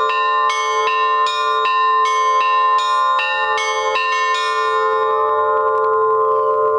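Russian Orthodox church bells: the middle bells are struck in a fast alternating pattern in the Trinity-Sergius Lavra style, about two and a half strokes a second. The strikes stop about four and a half seconds in and the bells ring on.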